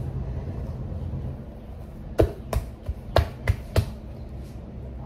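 Hands working corn masa in a plastic bowl, with five sharp slaps in quick succession about two seconds in.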